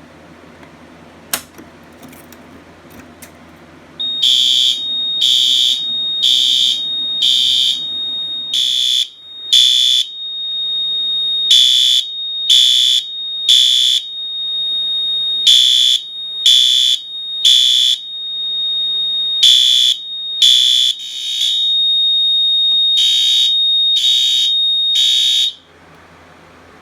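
System Sensor P4RL horn strobe on low volume sounding the code 3 (temporal-3) evacuation pattern: three horn blasts, a pause, then three more, over a steady high tone. It starts about four seconds in, after a single sharp click, and cuts off abruptly near the end as the alarm is silenced.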